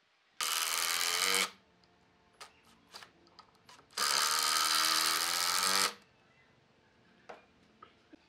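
Power drill driving screws into a curved wooden table rail: two steady runs of the motor, the first about a second long and the second about two seconds, with small knocks of handling between them.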